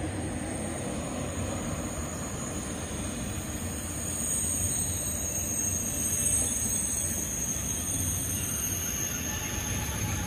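SNCF TGV high-speed electric train passing, a steady rush of wheel and running noise that swells slightly midway, with thin high-pitched tones above it.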